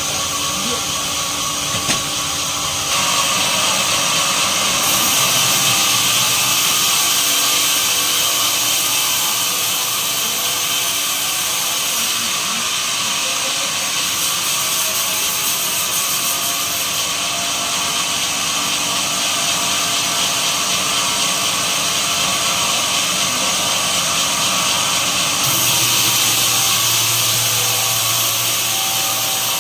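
Sawmill machinery running, with a power saw cutting pine. It makes a continuous hissing noise that gets louder about three seconds in and shifts in level several times, and a low hum joins near the end.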